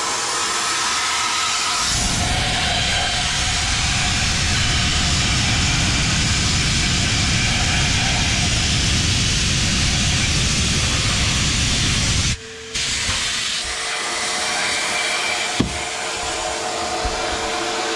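Abrasive blast cabinet in use: the blast gun hisses steadily as it blasts silica grit against steel parts, stripping rust and old coating. The blast grows heavier about two seconds in, cuts out briefly about twelve seconds in, then goes on more lightly over a steady hum.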